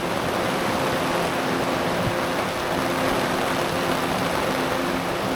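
Steady rain falling, a dense even hiss, with a faint steady hum underneath.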